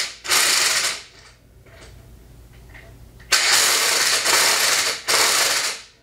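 Impact wrench hammering a flywheel nut tight in three bursts: a short one at the start, a longer run after a pause of about two seconds, then a short one near the end. The nut is drawing the flywheel down onto the crankshaft taper.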